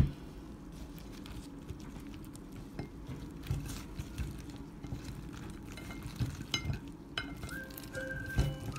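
Gloved hands tossing sauce-coated fried chicken wings on a ceramic plate: irregular wet, sticky squelches and light knocks against the plate, after a sharp click at the very start. Background music comes in near the end.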